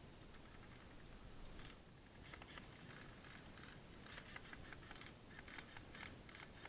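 Faint, irregular light clicks and rustles over near silence, starting about a second and a half in.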